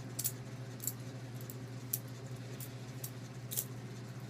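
Benchmade butterfly knife trainer being flipped and twirled in the hand: its handles and replica blade swing around the pivots and knock together in sharp metallic clicks, coming irregularly about every half second to a second.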